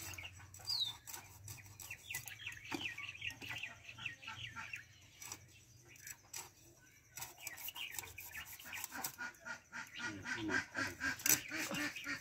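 Fish being scaled against a boti's fixed curved blade: quick rasping scrapes, thickest and loudest near the end. A bird chirps once near the start.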